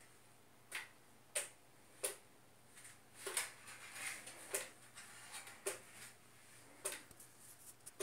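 A series of sharp, soft clicks, roughly one a second, with faint crackling between them.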